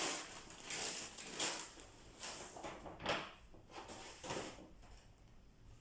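Groceries and their packaging being handled: a run of about seven short rustling scuffs and knocks, quieter near the end.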